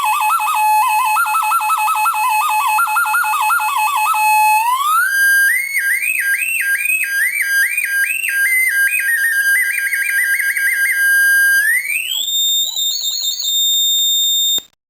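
Homemade oscillator drone machine putting out a steady buzzy electronic tone with rapid warbling chirps over it. The pitch slides up to a higher note about five seconds in and again about twelve seconds in. The sound cuts off suddenly just before the end.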